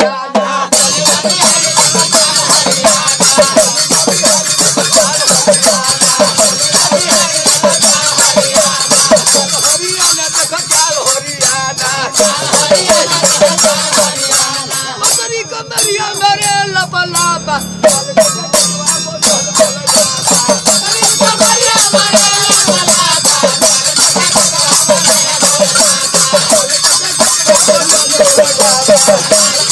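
Bhojpuri folk music played on a huruka, the small hourglass hand drum, with a steady jingling rattle over the beat and a wavering melodic line above it.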